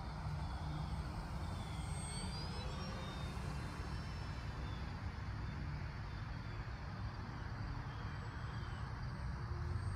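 Battery-electric RC Corsair model plane flying at a distance: a faint, steady motor-and-propeller drone over a low rumble, with slight rises and falls in pitch as it passes.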